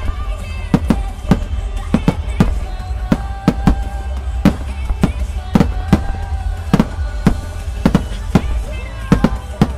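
Aerial firework shells bursting in quick succession, a sharp bang about twice a second, over music playing.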